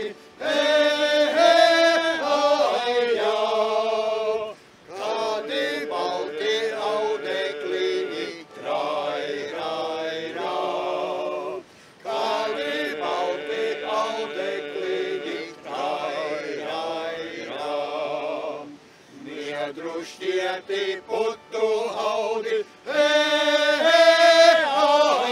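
Men's folk group singing in the Suiti drone style, the melody carried over a low held drone. The song comes in phrases of about six to seven seconds with short breaks between them.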